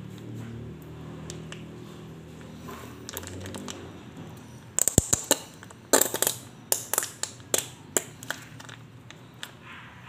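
Plastic squeeze pouch crinkling and crackling as it is squeezed and crumpled in the hands. A run of sharp crackles starts about halfway through, loudest at first, then thins out.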